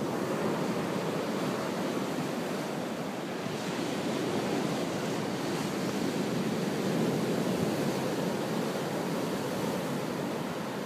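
Ocean surf breaking and washing up a sandy beach: a steady rush of waves that swells slightly around the middle.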